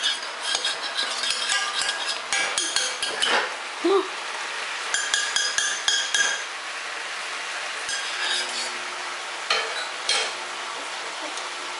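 A utensil stirring, scraping and clinking against a stainless steel saucepan as a toddler plays at cooking, in several bursts of clinks with short pauses between them.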